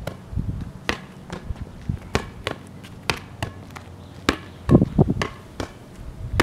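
Red rubber playground ball bouncing on a concrete driveway and being slapped back by hand in a four square rally: a string of sharp smacks, bounce then hit, about every half second.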